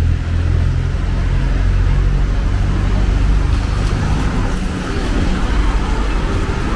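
Street traffic, with a motor vehicle's engine running close by as a low, steady hum over a wash of road noise.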